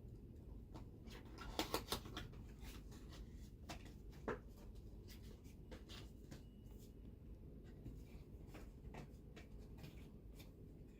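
Irregular light clicks and scratches, with a short cluster of louder ones about a second and a half in and one sharper knock just past four seconds.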